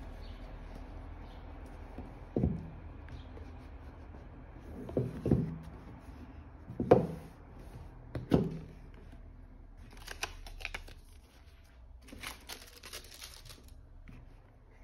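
Cardboard watch presentation box handled on a tabletop: about five dull thumps and knocks, two of them in quick succession, as it is moved and set down. Later, two spells of scraping, papery rustling as the lid is worked off.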